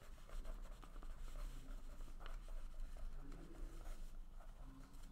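Faint pen-and-paper handling sounds: soft rustles and small ticks of a hand and pen on a sheet of paper, over quiet room tone.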